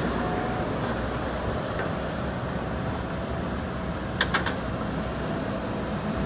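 JCB backhoe loader's diesel engine running steadily under work. A quick cluster of sharp metallic clanks comes a little after four seconds in.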